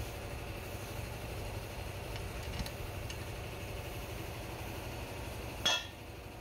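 Workshop noise: a steady low hum throughout, with faint clicks of loose bolts being handled, and one sharp knock with a brief ring near the end.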